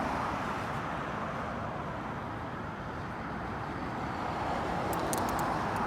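Steady motor-vehicle road noise: a low rumble with hiss, unchanging throughout, with a few faint ticks near the end.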